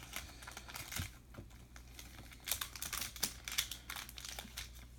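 Baseball cards being handled and turned over in the hands: light taps, clicks and rustles of card stock, busiest a little past halfway.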